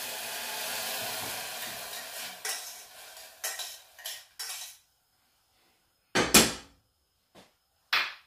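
Water hissing in a hot saucepan of peas, fading over the first two seconds or so. Then a few light knocks and a loud metal clank about six seconds in as the saucepan is handled and set down on a gas hob's grate, with another knock near the end.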